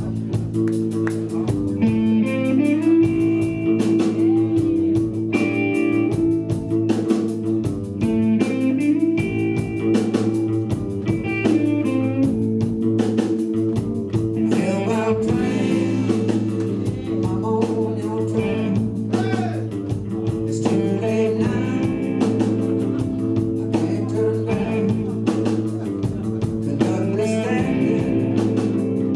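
Blues-rock band playing live: electric guitar lines over a steady bass line and drums.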